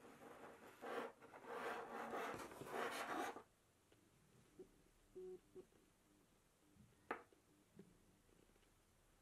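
Rubbing and scraping as a braided USB cable is handled and dragged on a wooden tabletop. It stops abruptly after about three and a half seconds, leaving near silence with a few faint ticks and one sharp click about seven seconds in.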